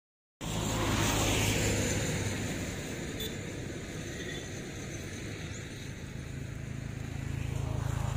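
Road traffic passing on a highway: a vehicle's tyre and engine noise swells about a second in and fades, and a low engine hum builds again near the end as another vehicle approaches.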